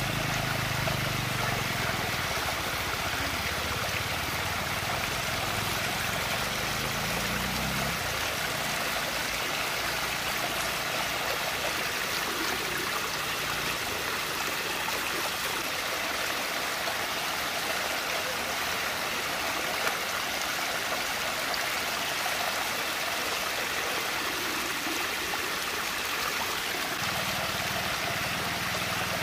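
Water rushing steadily as it swirls down into a large whirlpool, an even rush of noise, with a low hum underneath for the first eight seconds and again near the end.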